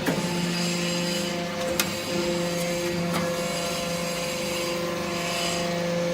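Aluminium chips briquetting press running: a steady machine hum with a couple of sharp clicks about two and three seconds in.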